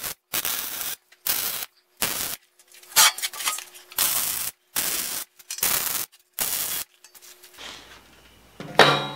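MIG welder laying a string of short stitch welds on a steel tube frame: about nine half-second bursts of arc noise with brief gaps between them. Near the end, a single metallic clatter.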